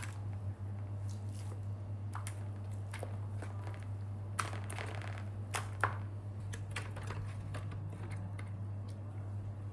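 A hand squishing pork slices in a watery blended marinade in a stainless steel pan: soft wet squelches with scattered short clicks, two sharper ones about four and a half and six seconds in, over a steady low hum.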